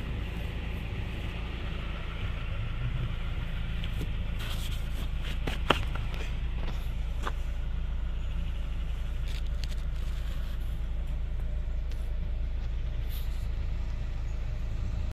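Car engine idling steadily, a low even hum, with a few light clicks and one sharp click a little before the middle.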